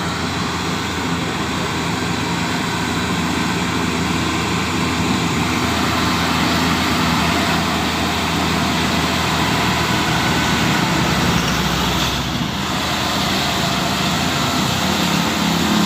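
Heavy truck's diesel engine running under load on a steep uphill climb, a steady, loud engine noise mixed with road noise.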